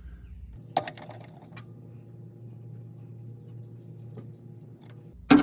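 Light clicks from hand work on an open carburetor, a cluster about a second in and one sharper click near the end, over a steady low hum.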